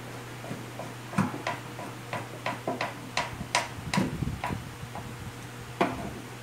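Hand screwdriver driving the screws of a recessed carrying handle into a speaker cabinet: a run of sharp clicks, roughly two a second and a little uneven, starting about a second in and stopping near the end.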